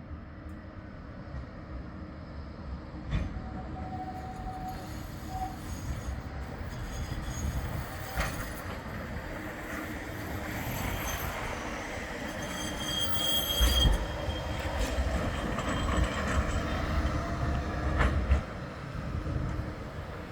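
Bombardier Flexity 2 tram running along street track, its wheels squealing in thin high tones as it grows louder, with a few sharp knocks from the wheels.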